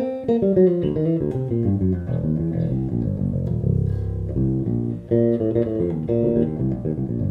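Six-string electric bass with a mahogany body and figured koa tone block, played solo through its middle pickup alone, wired in parallel: a fast descending run of plucked notes, then a flowing line of notes. The tone is sweet.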